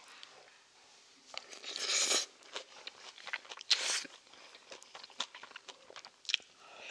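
Close-up chewing and biting of bibimbap with crunchy seasoned greens, amid scattered small clicks, with two louder noisy bursts about two and four seconds in.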